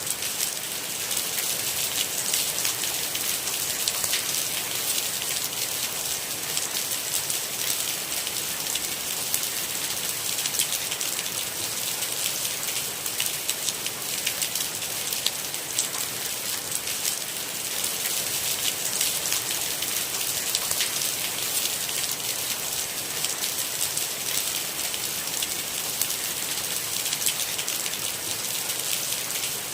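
Steady rain falling, a dense even hiss strongest in the upper range, flecked with many fine drop ticks and no thunder.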